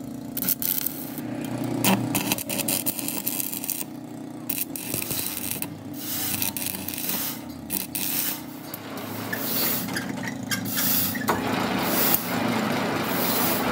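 Stick (arc) welding on a cast truck differential housing, building up the broken bearing seat: an irregular crackling, spitting arc. About eleven seconds in it gives way to the steady, even noise of a lathe turning the welded housing as the tool cuts the bore.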